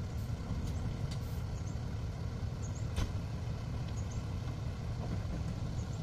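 Heavy diesel engines of a Caterpillar 320C excavator and an idling dump truck running steadily with a low rumble. There is one sharp knock about three seconds in.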